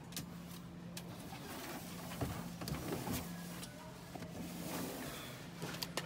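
Store background: a steady low mechanical hum with scattered small clicks and knocks.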